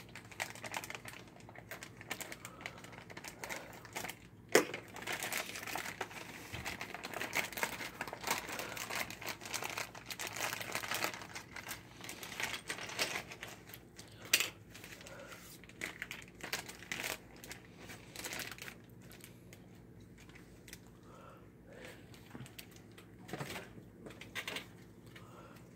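Clear plastic bag crinkling and rustling as small plastic game pieces are pulled out of it, with a couple of sharp clicks, one about four seconds in and one about fourteen seconds in. The crinkling dies down in the second half, leaving lighter rustles.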